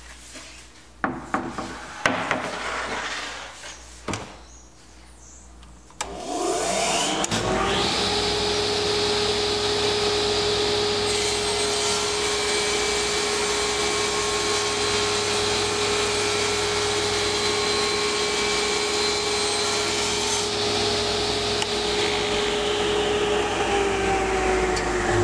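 A few knocks as a wooden board is handled on the saw table, then a KING table saw is switched on about six seconds in and spins up to a steady whine. Through the middle the blade cuts a shallow groove in the wooden enclosure top, adding a hissing rasp. Near the end the motor is switched off and winds down, falling in pitch.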